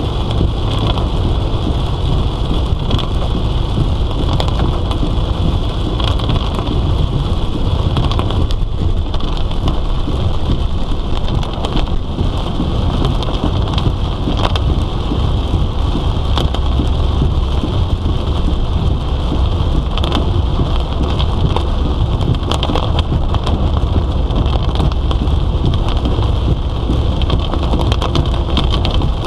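Heavy monsoon rain pelting a moving car, a dense steady patter over a constant low rumble from the car on the wet road.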